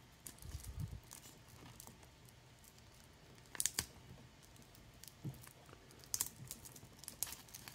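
Faint crinkling and scattered sharp clicks as protective plastic film is picked and peeled off a stainless steel watch bracelet, its metal links clicking as it is handled.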